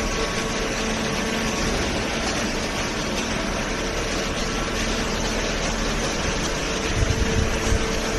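Hydraulic paper baler running: a steady machine noise with a constant hum from its pump and motor. Low irregular knocking starts near the end.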